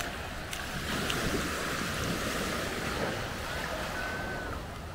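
Small waves washing steadily onto a sandy shore, with wind rumbling on the microphone.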